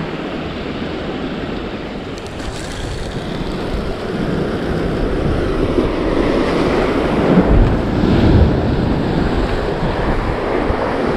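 Ocean surf washing against the rocks below, with wind blowing across the microphone. The wind grows stronger partway through, buffeting heavily about two-thirds of the way in.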